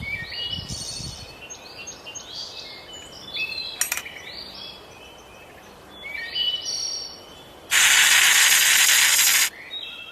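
Several songbirds singing and calling in short whistled phrases, with a sharp click about four seconds in. Near the end a loud, even hiss runs for nearly two seconds and cuts off suddenly.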